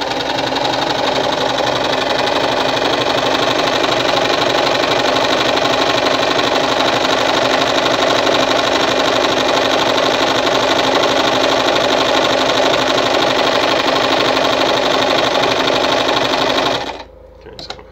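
Victoria Nuzstitch ZZ-570 household sewing machine running steadily at speed while stitching a pattern stitch. It stops abruptly about a second before the end.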